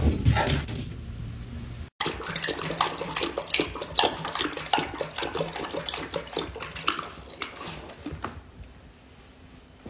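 A dog lapping water from a stainless steel bowl: quick wet laps and splashes, several a second, thinning out near the end. It begins after an abrupt cut from a short fading sound.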